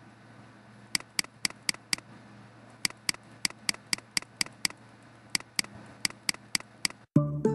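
Computer mouse clicking in three quick runs, about four clicks a second. Near the end, music starts suddenly.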